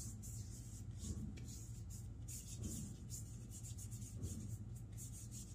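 Faint rubbing of hands spreading talcum powder over the skin, soft irregular strokes, over a low steady hum.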